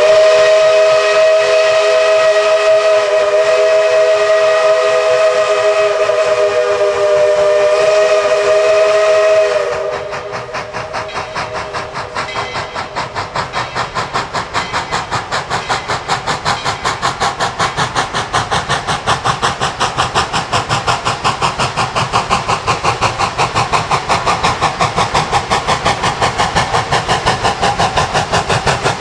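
Narrow-gauge steam locomotive blowing its chime whistle, one long chord of several notes held for about ten seconds. After the whistle stops, its exhaust chuffs in a fast, steady beat that grows louder as the engine approaches.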